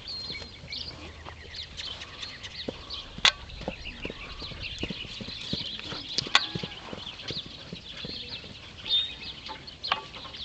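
Hoofbeats of a young Shire horse trotting and cantering loose on turf, an irregular run of soft thuds, with bird chirps in the background. Two sharp clicks, about a third and two thirds of the way through, are the loudest sounds.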